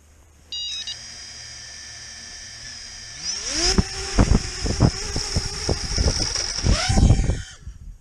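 FPV quadcopter's brushless motors: a short electronic beep about half a second in, then a steady high whine. About three seconds in the motors spin up to a steady idle hum, with loud gusty thumps on top, and the sound falls away as the quad takes off about seven and a half seconds in.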